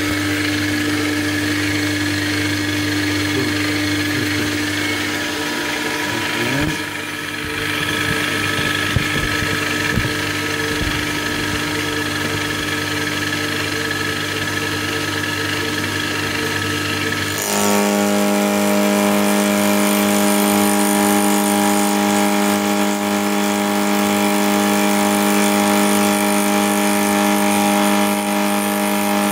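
Milling machine spindle running a homemade two-insert APMT carbide cutter through cold-rolled steel, cutting a shoulder: a steady mechanical whine of several held tones. About 17 seconds in, the tone changes suddenly to a louder, lower steady hum.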